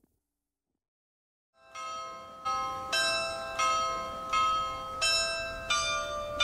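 Church bells ringing: several bells of different pitches struck one after another, about one and a half strokes a second, each note ringing on. The ringing starts about a second and a half in.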